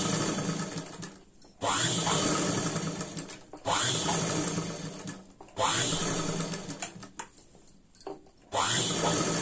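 Sewing machine stitching through layered fabric in five short runs of about two seconds each. Each run starts with a rising whine as the machine speeds up, then tails off and stops before the next.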